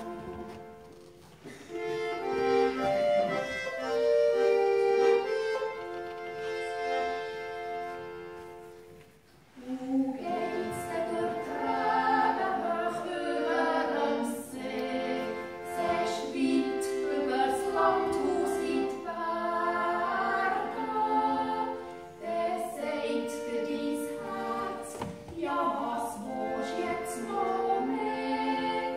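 Two women singing a Swiss folk duet, accompanied by a small button accordion (Schwyzerörgeli). The music breaks off briefly about nine seconds in and resumes about a second later.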